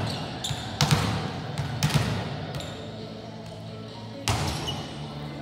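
Volleyball thumping, echoing around a gym: two bounces about a second apart, then a sharper hit about four seconds in.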